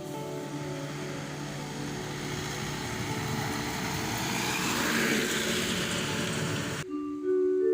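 A road vehicle passing by: a rush of noise that swells to a peak about five seconds in, then cuts off suddenly near the end.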